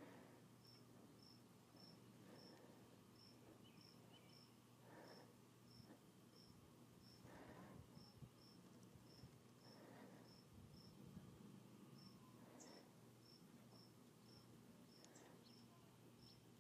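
Near silence, with an insect chirping faintly and steadily at about two chirps a second, and a few soft rustles.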